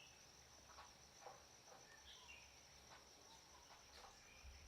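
Near silence: faint forest background with a steady high insect drone and a couple of soft bird chirps, one falling call about two seconds in.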